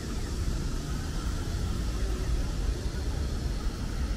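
Steady city street noise: a low rumble with an even hiss above it.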